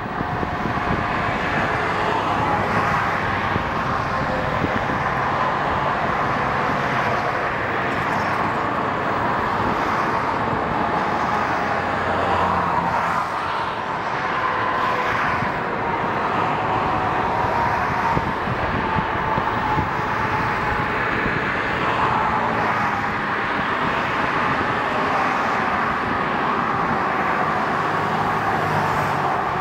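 Steady road traffic noise, cars and trucks passing continuously as an even wash of tyre and engine sound.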